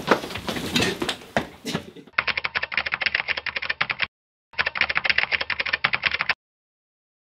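A rapid typing sound effect, key clicks about ten a second, in two runs with a short pause between them, matching two lines of title text typing out. It ends abruptly. Before it comes a second or two of clattering movement and voices.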